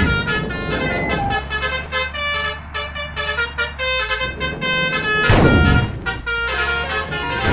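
Telolet basuri musical air horn playing a quick tune of short notes over a running vehicle engine, with a loud rushing burst of noise a little after five seconds in.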